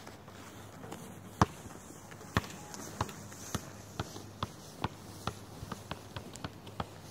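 A basketball bouncing on asphalt. The first bounce is the loudest, and the bounces then come quicker and fainter as the ball settles.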